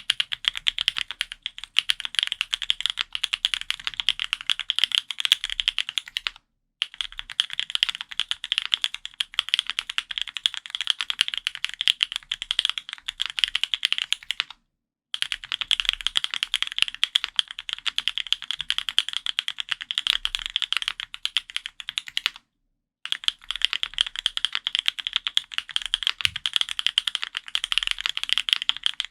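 Fast, continuous typing on a custom F1-8X mechanical keyboard with lubed Gateron Luciola linear switches, GMK keycaps and an aluminium plate. The typing comes in four long runs with short pauses between them.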